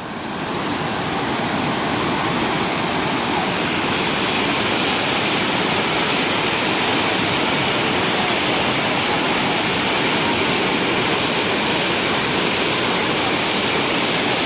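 Swollen, flooding river rushing fast and close beneath a bridge: a loud, steady roar of torrential water.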